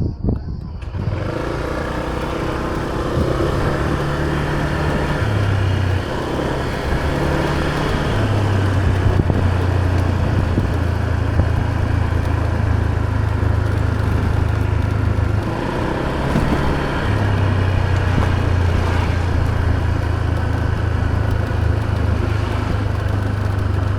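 A motor scooter's engine running steadily under way, its low note stepping up and down a few times as the speed changes, under a steady rush of wind and road noise.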